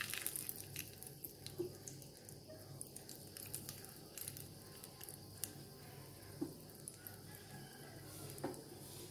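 Cashews and raisins frying in ghee in a small steel saucepan, a faint, irregular crackling sizzle.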